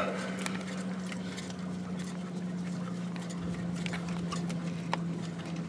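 Faint, scattered clicks and rustling of a hand and tools working among wiring harnesses in a cramped engine bay while a glow plug is fitted, over a steady low hum.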